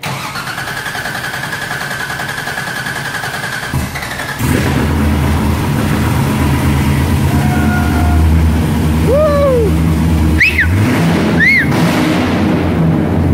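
LS3 6.2-litre V8 in a 1964 Corvette C2 being started for the first time: the starter cranks it with a steady whine for about four seconds, then the engine catches and settles into a loud, steady run. A few short, high chirps that rise and fall sound over it near the end.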